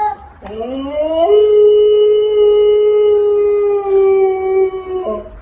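Siberian husky howling: one long howl that rises in pitch over its first second, then holds a steady note for about four seconds before breaking off.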